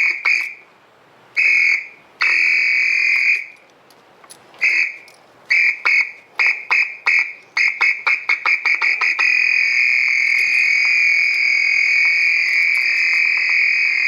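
Siren sounding a steady high-pitched tone, switched on and off: a few short blasts, then a run of quick beeps at about three to four a second, then one long unbroken blast from about nine seconds in to the end, where it cuts off.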